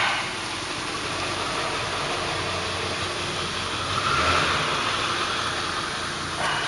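Steady mechanical noise like an engine running, swelling a little about four seconds in.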